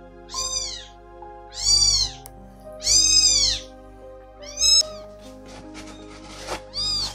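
Three-week-old kittens meowing loudly: five high-pitched cries, each rising and falling in pitch, over background music.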